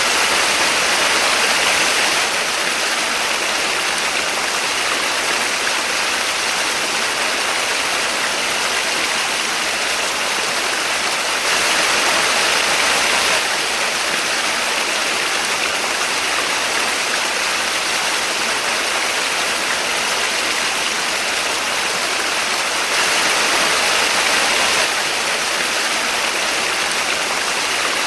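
Small waterfall: a steady rush of falling water that briefly swells a little louder three times, about every eleven seconds.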